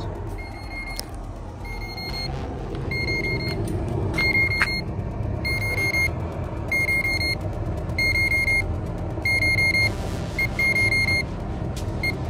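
A ProGrade digital probe meat thermometer sounding its alarm: short bursts of rapid high beeps about once a second, a sign that the meat has reached the set temperature of 171°F. A steady low rumble runs underneath.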